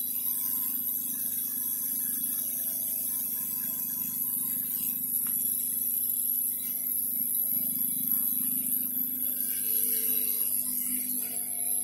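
Steady high-pitched hiss over a low hum, with a few faint scattered tones: background room noise with no distinct event.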